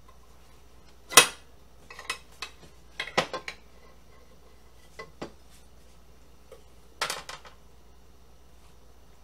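Metal utensil clinking and scraping against a glass loaf pan, prying out bread that has stuck to it. A string of sharp clinks, the loudest about a second in, with clusters near three and seven seconds.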